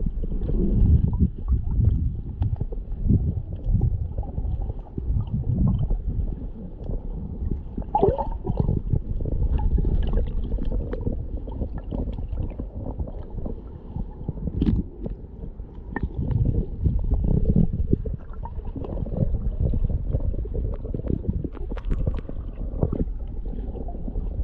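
Shallow sea water heard underwater through a submerged camera: an irregular, muffled low rumble of churning and sloshing water, with scattered small clicks.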